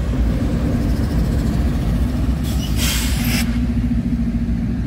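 Diesel locomotive running with a steady low rumble and hum. About two and a half seconds in comes a hiss of compressed air lasting about a second.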